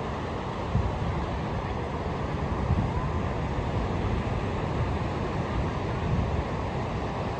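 Steady rushing of ocean surf on a beach, with low rumbling wind buffeting on the microphone.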